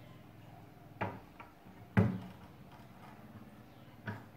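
Knocks and clunks from the North Bayou NB F80 monitor arm as it is handled and swung into position on its desk clamp. There are three: about a second in, a sharper and louder one at two seconds, and another near the end.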